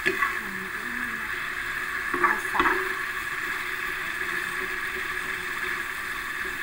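Tempe bacem sizzling steadily in a wok as its sweet soy sauce cooks down nearly dry, while a metal spatula stirs it. The spatula knocks and scrapes against the pan at the start and twice about two and a half seconds in.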